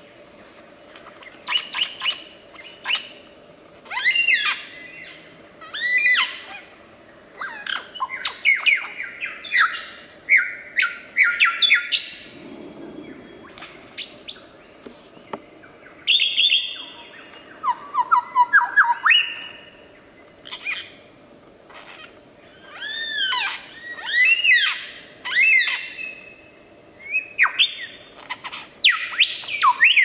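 Superb lyrebird singing: a long run of loud, varied phrases in short bursts with brief pauses between them, with sweeping rising and falling whistles, sharp squawks and a quick falling series of notes.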